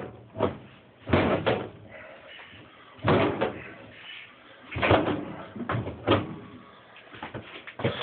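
Repeated, irregular knocks and thumps of a Kenmore Oasis washer's plastic inner tub being yanked and rocked by hand, banging inside the outer tub because it is stuck and won't lift out. The owner takes this stuck tub for the cause of the washer's overload (OL) code.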